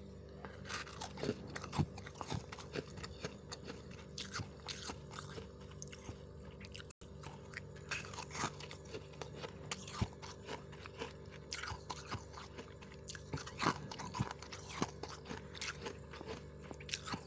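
Close-up crunching as a person bites and chews freezer frost, with many crisp crunches through the whole stretch over a steady low hum. The sound drops out for an instant about seven seconds in.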